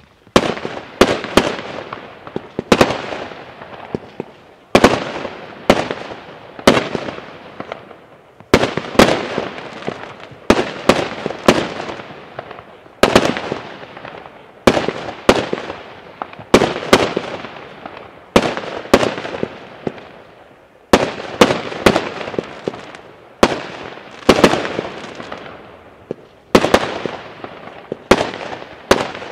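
Class 2 consumer fireworks firing shot after shot: sharp bangs about once a second, often in quick pairs, each trailing off in echo.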